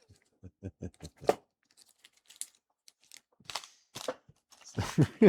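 Paper and plastic packaging crinkling as a kit's bag and instruction sheet are handled. A short run of quick voiced pulses, like a chuckle, comes about half a second in, and speech starts near the end.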